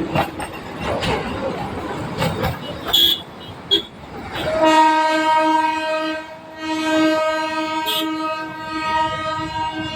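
Darjeeling toy train rattling and clattering along the rails. About halfway through, its horn sounds one long, steady blast of about five seconds.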